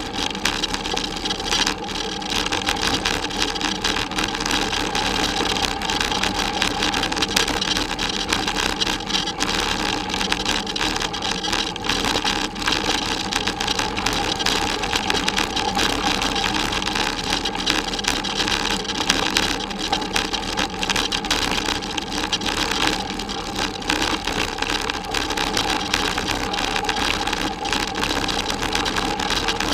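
Steady rumble and rattle of a bicycle ride over a rough forest dirt and gravel track. The tyres roll over the uneven ground and the mounted camera is jolted by it, with constant fine rattling throughout.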